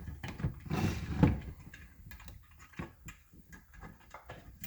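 Tools and small metal parts being handled on a workbench: a scrape with a knock about a second in, then scattered light clicks and taps.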